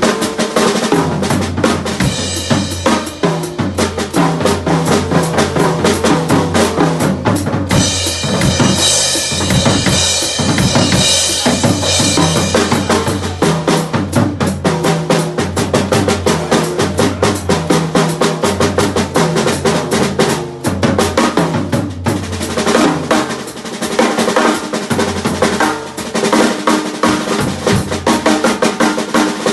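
Acoustic drum kit played live with sticks: busy snare and tom fills over bass drum, with cymbal washes about two seconds in and again from about eight to twelve seconds in.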